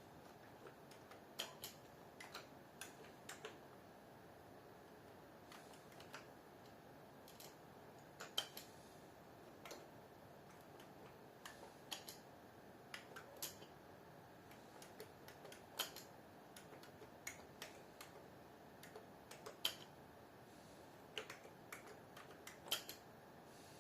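Slow, irregular keystrokes on a computer keyboard: single clicks and small clusters a second or two apart, over faint steady hiss.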